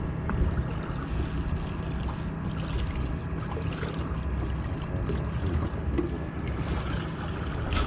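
Fishing boat's engine running with a steady low hum, with wind and water noise over it.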